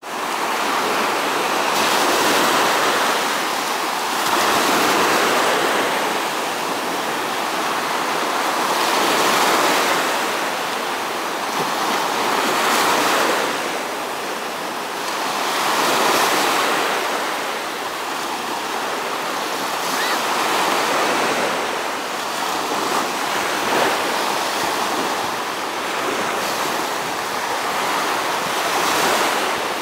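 Small Gulf of Mexico waves breaking and washing up on a sandy beach, the surf swelling and easing every three to four seconds.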